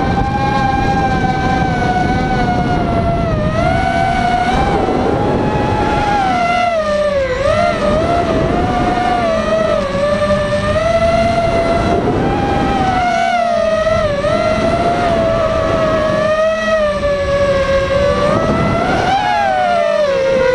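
ImmersionRC Vortex Pro FPV racing quadcopter's brushless motors and propellers whining, heard from the camera on board, the pitch rising and falling as the throttle changes through the flight, with a rough rushing noise underneath.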